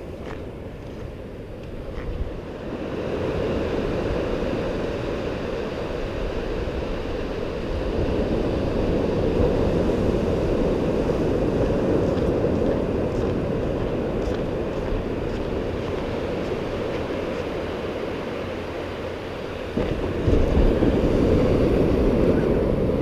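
Ocean surf washing up the beach with wind buffeting the microphone, a steady low rushing that swells a few seconds in and jumps louder near the end.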